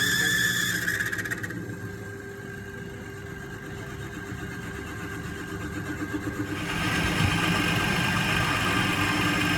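Workshop machinery running: a steady motor whine that cuts out about a second and a half in, then a louder, rougher machine noise starting near seven seconds.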